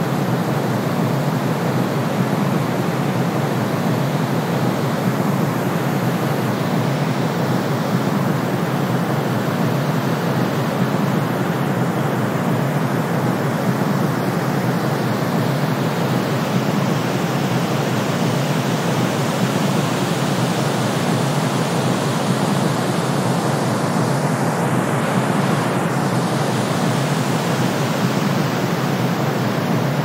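Brown noise mixed with white noise: a steady, even hiss with most of its weight in the low middle range, and no pitch, rhythm or change.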